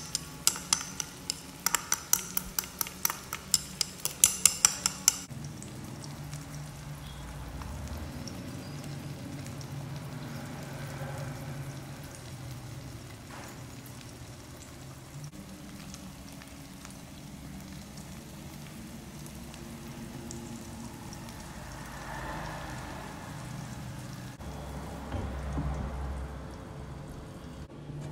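Egg, tomato and onion omelette frying in a non-stick pan: sharp crackling pops for about the first five seconds, then a steady sizzle. Near the end there is a louder, duller knock as a glass lid is set over the pan.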